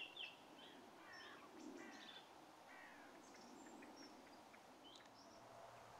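Faint birds chirping: many short calls and quick falling chirps scattered through, over faint background hiss.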